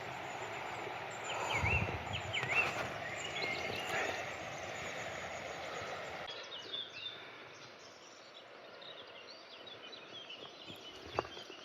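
Small birds singing and calling in short chirps over a steady rushing outdoor background, which drops to a quieter level about halfway through.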